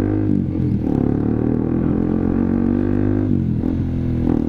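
Honda CBR150R's single-cylinder engine running through an aftermarket SC-Project exhaust while riding. The engine note sags briefly just after the start, then drops and climbs back again about three seconds in.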